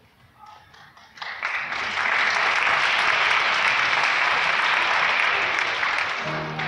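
Audience applauding, starting about a second in and dying away near the end as instrumental music begins.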